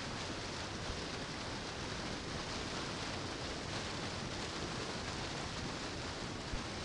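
Steady, even rush of falling water, a waterfall's unbroken hiss.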